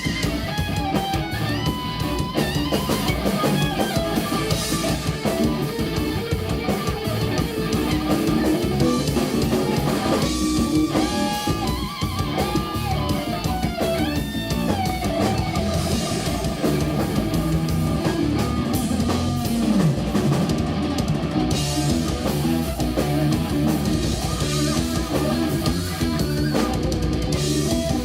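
Live instrumental rock played by a guitar, bass and drums trio: electric guitar over bass and drum kit, with bending guitar notes around the middle.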